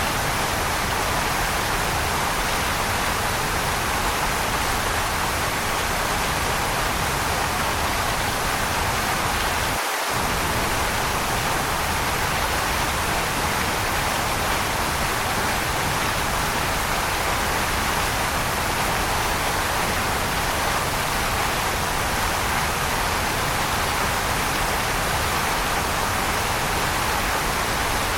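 Waterfall rushing in a steady, even hiss of falling water, with no changes in level.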